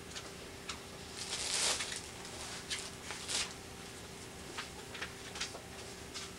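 Pages of a hardback book being handled and turned, with one louder page-turn swish about a second and a half in and soft paper rustles and clicks around it, over a faint steady hum.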